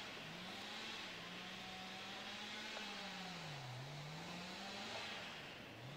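Faint, distant motor-vehicle engine running, its pitch dropping clearly a little past halfway and again near the end, picking back up after each dip.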